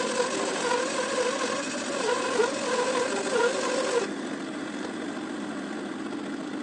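A 20-inch, 3/4-horsepower electric bandsaw running with its blade cutting through a log, the pitch wavering and dipping under the load. About four seconds in, the cutting sound drops away, leaving the saw running steadier and a little quieter.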